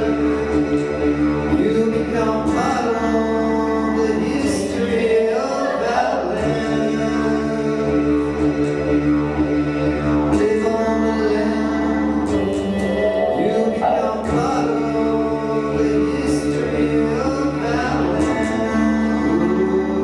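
Live vocal looping: layered, repeating sung and chanted vocal lines built up on a looper over a steady low drone, with no pause.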